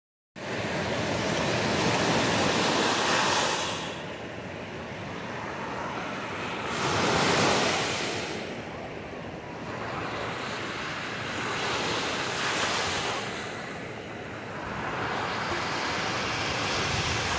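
Small shore-break waves crashing and washing up the sand, the surf swelling and easing in surges about every four to five seconds.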